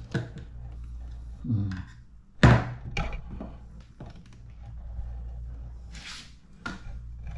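Handling noise from fishing gear: a sharp thunk about two and a half seconds in, then a few lighter clicks and knocks, over a low steady hum.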